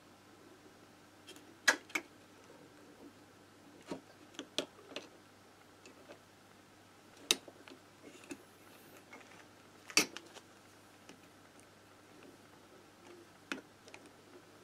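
Scattered sharp clicks and light knocks of small metal engine parts and tools being handled on a workbench during moped engine reassembly. About a dozen, three of them louder, spread unevenly over a faint steady hum.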